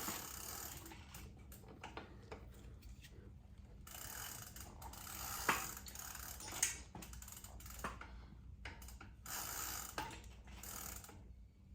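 Bicycle pedal being threaded into the crank arm with a pedal wrench: irregular metal clicks of the wrench and threads, with a few sharper clicks midway.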